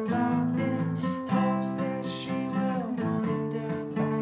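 Acoustic guitar strumming chords, changing chords a few times.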